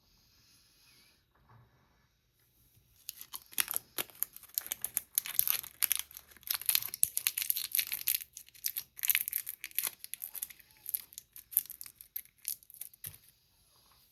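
Candy wrapper being crinkled and torn open: a dense run of sharp crackles starting about three seconds in and thinning out near the end.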